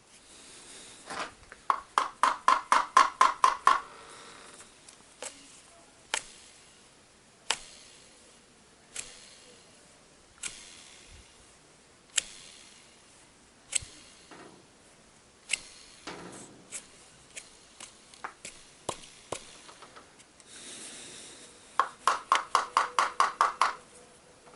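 Light ringing taps on the reassembled GAZelle heater fan motor and its impeller: a fast run of about seven taps a second about a second in, then single sharp clicks every second or two, and another fast run of taps near the end.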